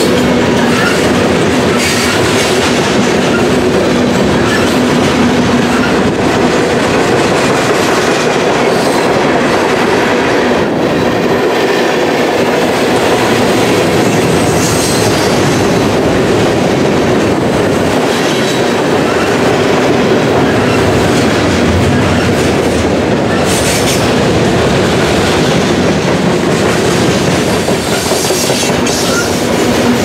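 Freight train of covered hoppers and gondolas rolling past at close range: a loud, steady rumble of steel wheels on rail, with occasional clicks.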